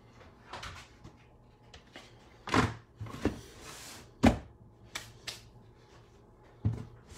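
A lid being put back on a beetle-rearing bin: a handful of separate knocks and clunks with light rubbing between, the loudest a sharp knock about four seconds in.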